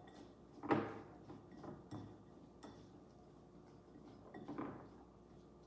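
Utensil clinking and scraping against a glass mixing bowl as sliced okra is tossed in oil, salt and pepper: a few scattered clinks, the loudest just under a second in.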